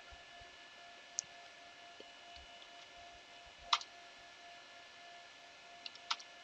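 A few faint, sharp clicks at a computer, about five in all with the loudest near the middle, over a steady faint electrical hum and hiss.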